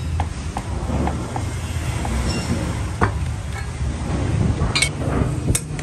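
Workshop noise: a steady low hum with scattered light clicks. About five seconds in there is a metallic knock with a brief high ring, and just before the end a sharper knock.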